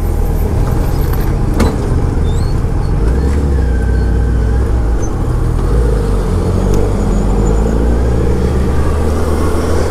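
Suzuki Hayabusa's inline-four engine running at low revs as the bike rolls through slow traffic, its note shifting a few times with the throttle. One sharp click about a second and a half in.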